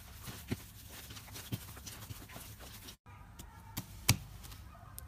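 Hand squishing and pulling sticky slime, making wet clicking and popping sounds. About three seconds in the sound cuts to a hand pressing a glossy slime, with a few sharper pops, the loudest just after four seconds in.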